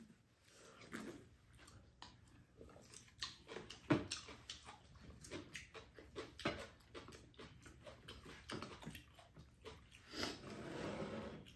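Eating sounds: chewing and slurping of soup, with small clicks of spoons and chopsticks against ceramic bowls, one sharper click about four seconds in.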